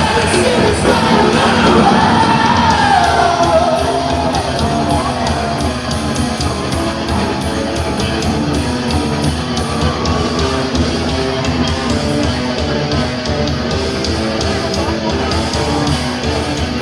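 A rock band playing live in a large hall: distorted guitars, bass and drums under a shouted, sung lead vocal that slides down in pitch a few seconds in.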